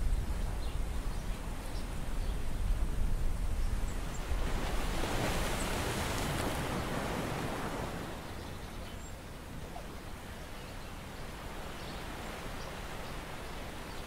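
Wind rumbling on the microphone over sea water washing and lapping, with a wash of noise swelling for a couple of seconds about a third of the way in; the rumble eases a little past halfway.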